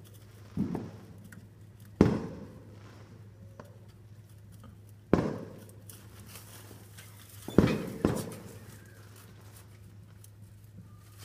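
Fireworks bursting some distance off: five sharp bangs, each trailing away in an echo, the last two close together, over a steady low hum.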